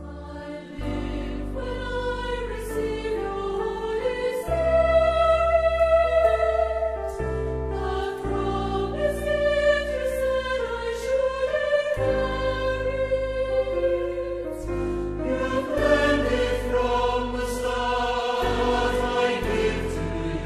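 A choir singing a slow Christian worship song in long, held phrases over instrumental accompaniment with a steady bass.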